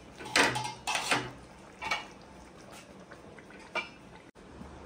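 Metal cookware clanking as a kadhai of cooking jackfruit curry is covered with its lid: two loud clanks about half a second and one second in, then lighter clinks near two and four seconds.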